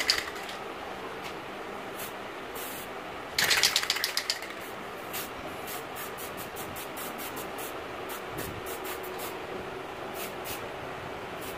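Aerosol spray paint can spraying in many short hissing puffs, with a louder, denser burst of hiss about three and a half seconds in.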